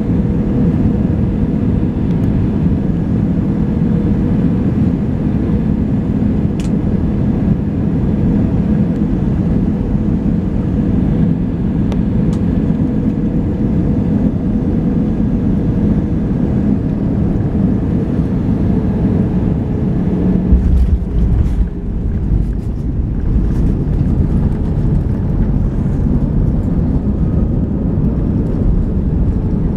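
Cabin noise of an Airbus A320 on final approach: a steady engine and airflow drone with a hum. About two-thirds of the way in, the main wheels touch down with a jolt. A heavier low rumble of the wheels rolling on the runway follows.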